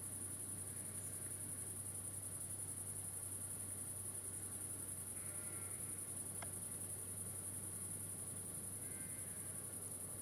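Crickets chirring steadily in a continuous high-pitched evening chorus, over a faint low hum.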